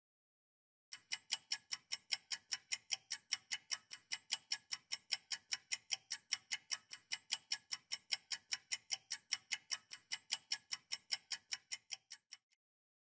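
Clock-style ticking sound effect marking a quiz countdown timer: quick, evenly spaced ticks, about four to five a second, starting about a second in and stopping shortly before the end.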